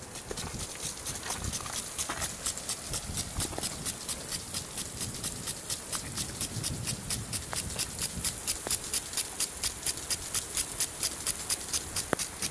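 Footsteps crunching in snow: an even, quick stride of short crisp crunches with dull thuds under them, growing louder about half a second in.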